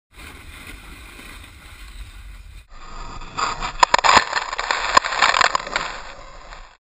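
Snowboard riding heard through a helmet camera: wind rushing over the microphone and the board running on snow. After an abrupt cut about two and a half seconds in, there is a louder rush of snow with several sharp knocks and thumps as snow sprays over the camera, and it ends suddenly.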